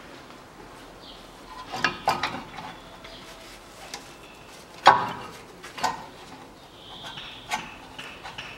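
Light metallic clinks and taps as the bolts of a Ford Ranger's front brake caliper are started by hand, with one sharper knock about five seconds in.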